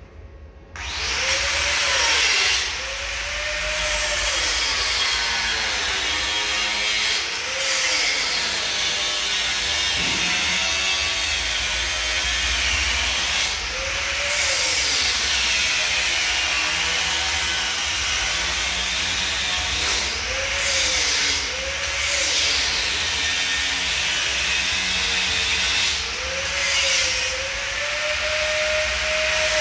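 Angle grinder working on metal. It starts up about a second in, then runs steadily with its motor whine sagging under load and rising again each time the disc is eased off the work.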